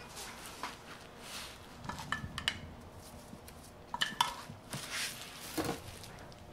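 Light kitchen clatter: a few short clinks and knocks of kitchenware, in two small clusters about two and four seconds in, with a couple of softer knocks near the end.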